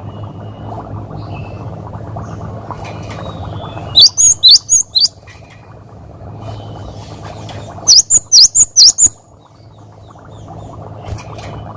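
Cinereous tit (gelatik batu) singing two quick, loud phrases of five or six sharp, high, hooked whistled notes each, one about four seconds in and the next about eight seconds in. Under the song runs a steady low hum, with faint chirps in the background.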